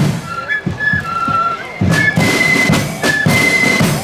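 Marching flute band playing a tune: flutes carry the melody over snare drums, bass drum and cymbals. The drumming gets louder about two seconds in, under a held high flute note.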